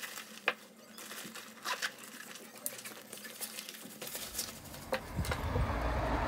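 Rustling and scattered light clicks of a bag strap and belongings being handled. About two-thirds of the way through, a low rumble comes in and grows louder.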